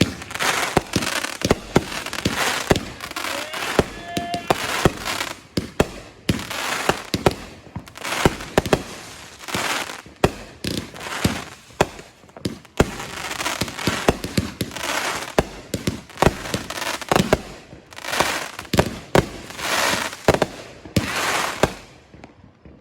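Consumer firework cake going off: a dense, unbroken string of sharp bangs and crackling that stops just before the end.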